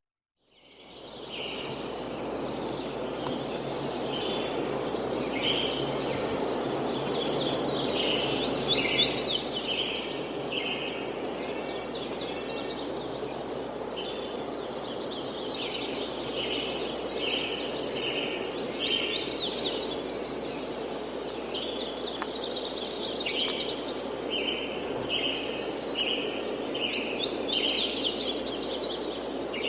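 Outdoor country ambience: several birds chirping and trilling in short repeated phrases over a steady hiss of light wind. It fades in over the first second.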